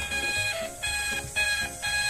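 Toy ambulance's electronic siren sounding as a string of high, beeping tones with short gaps, over background music.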